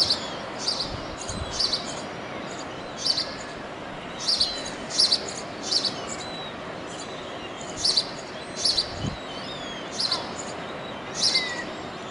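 Yellow-legged gull chicks peeping: short, high, thin calls in quick little clusters that come at irregular intervals, over a steady background hiss.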